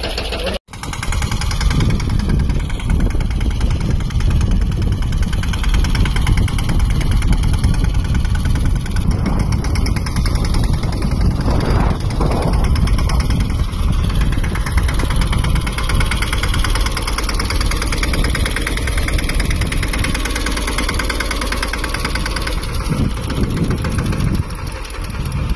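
Mahindra Yuvraj 215 tractor's single-cylinder diesel engine running steadily, with a brief dropout under a second in.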